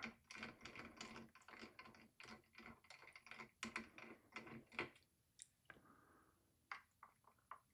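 Faint, rapid small clicks and scrapes as the tiny retaining screw of a mini PC's M.2 slot is backed out with a screwdriver. After that come a few separate light clicks as an NVMe SSD is handled and set into the slot.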